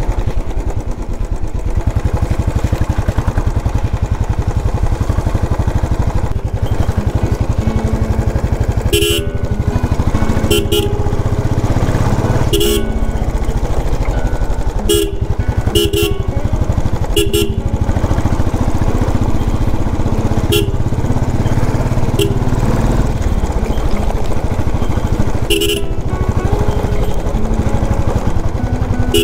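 Motorcycle engine idling with a steady low rumble, while vehicle horns give short beeps about eight times, mostly in the middle of the stretch.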